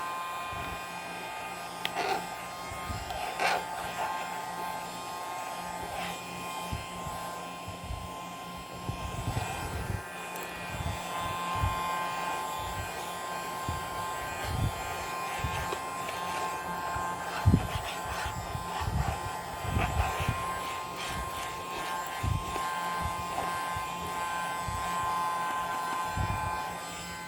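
Battery-powered mini keyboard vacuum cleaner running with a steady high motor whine, with irregular low knocks as it is handled.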